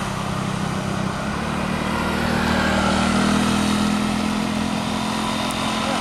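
Road vehicle engines: a motorcycle's steady engine hum growing a little louder in the middle as it approaches and passes close, over the lower running of a tour bus driving away.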